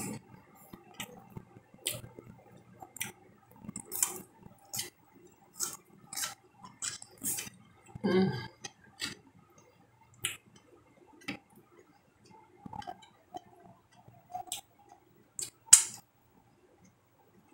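Close-up eating by hand: irregular sharp clicks and smacks of fingers picking at food on a glass plate and of mouth and chewing noises, roughly one or two a second. There is a brief low sound about eight seconds in. The loudest click comes near the end, as a mouthful of watercress goes into the mouth.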